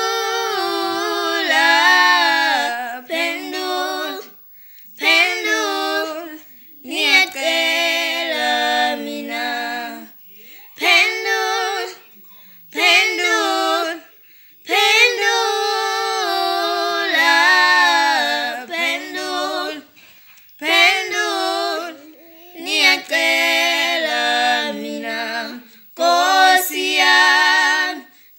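A woman and a young girl singing together unaccompanied, in sung phrases of one to five seconds with short pauses for breath between them.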